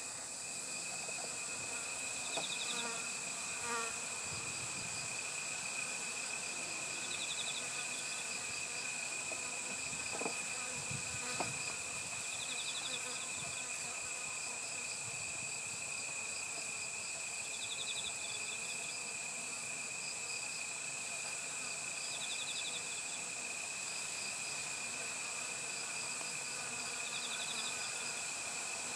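Chorus of singing insects such as crickets: steady high-pitched trills, with a short pulsed chirp repeating about every five seconds.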